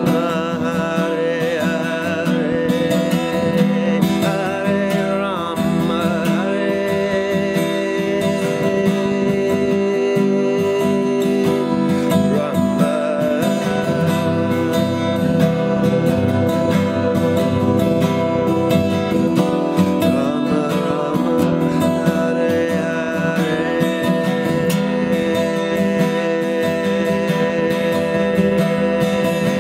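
Steel-string acoustic guitar strummed in a steady rhythm, accompanying a voice singing a devotional chant.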